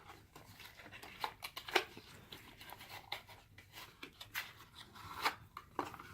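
Wrapper of a surprise chocolate egg crinkling and tearing as it is opened by hand, in scattered soft crackles and clicks.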